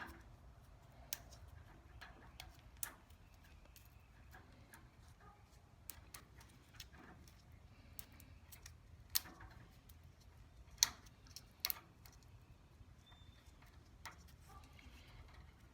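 Sparse, irregular clicks and small crackles of fingers picking and peeling old electrical tape off a wiring splice, the sharpest few coming about nine to twelve seconds in, over a faint low hum.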